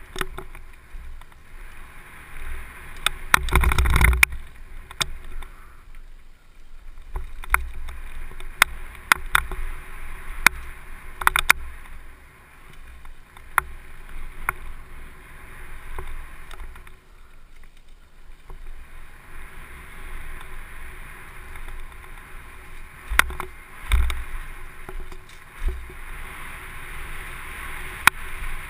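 Downhill mountain bike running fast over a dirt trail, with wind buffeting the helmet camera's microphone and tyre noise. Sharp rattling clicks from the bike come over the bumps, and a louder rush of noise about four seconds in.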